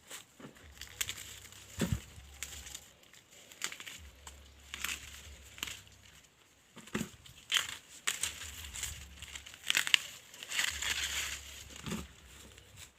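Dry maize stalks, leaves and husks rustling and crackling as cobs are picked by hand, with a few sharp snaps along the way.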